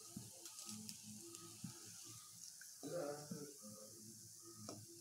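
Hot oil sizzling faintly in a kadai as fried urad dal vadas are lifted out with a steel slotted spoon, with a few light clinks of the spoon against the pan.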